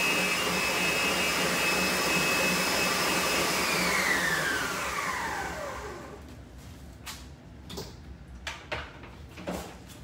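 Electric mixer whipping egg whites runs steadily with a high whine, then is switched off about three and a half seconds in, its pitch falling as the motor spins down over about two seconds. A few light knocks follow.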